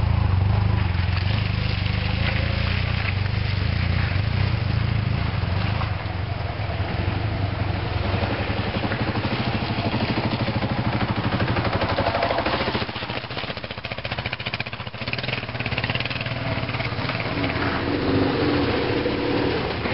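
Dual-sport motorcycle engine running and revving as the bike is ridden over logs and up a rutted dirt trail. It is loudest in the first seconds, drops off about twelve seconds in, and revs up again near the end.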